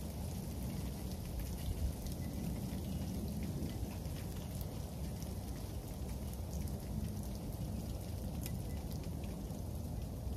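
Freezing rain falling steadily on a patio, with many small sharp ticks of drops striking hard surfaces over a low, even rumble.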